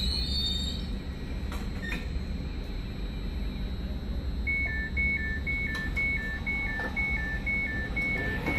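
Two-tone alternating beeping, high-low about twice a second, starting about halfway in over a steady low rumble of a train: a train's door-closing warning. A high squeal dies away in the first second.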